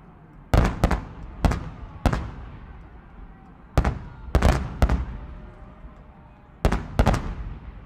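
Aerial firework shells bursting, about a dozen sharp booms, several coming in quick clusters of two or three. Each bang trails off in echo.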